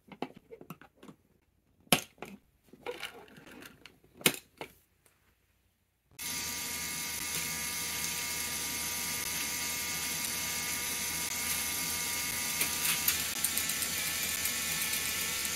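Sharp clicks and knocks of hard plastic coaster cars being handled. About six seconds in, a steady whir with a few steady tones starts suddenly: a K'Nex coaster motor running.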